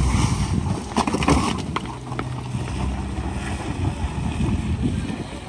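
Wind buffeting the microphone over the low hum of a Honda Civic's engine as the car crawls over a rough stone slope. A few sharp clicks of stones under the tyres come about a second in.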